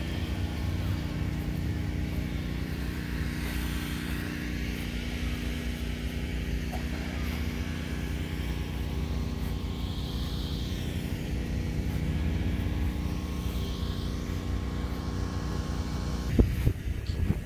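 A steady engine drone that holds one pitch throughout, with a few sharp knocks near the end.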